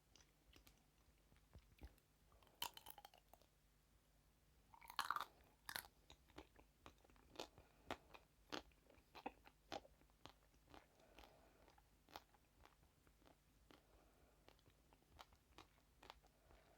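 Close-miked eating: a few crisp, loud bites about two and a half and five seconds in, then steady crunchy chewing with many small clicks.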